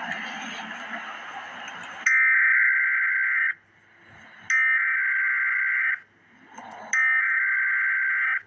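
A rushing noise for about two seconds, then the Emergency Alert System SAME header: three bursts of digital data tones, each about a second and a half long, about a second apart. This is the coded header that opens an alert.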